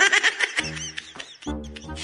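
Background music with steady held tones, opening with a short run of high-pitched, rising-and-falling calls.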